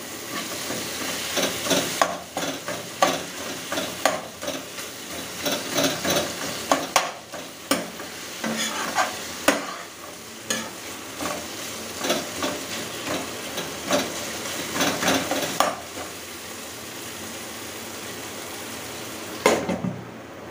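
Spatula stirring and scraping a tomato-onion masala sizzling in a non-stick frying pan, with many quick knocks of the spatula against the pan. The stirring stops about three-quarters of the way through, leaving a steady sizzle, and a glass lid clanks onto the pan near the end.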